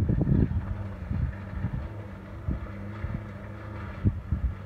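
Toyota Land Cruiser FZJ80's inline-six engine running steadily under load as it climbs a loose rocky grade. Gusts of wind buffet the microphone at the start and again near the end.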